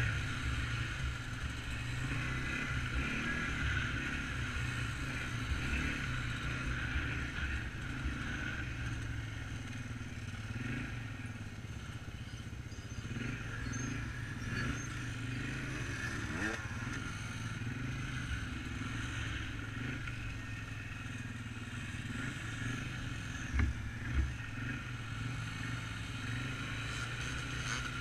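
Quad ATV engine running steadily as it rides a dirt trail, with a brief rise in pitch about halfway through. Two thumps half a second apart come a little before the end.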